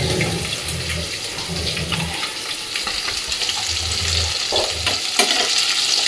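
Food sizzling in a frying pan as small fried fish are added and stirred in with a metal spatula, with a sharp clink about five seconds in.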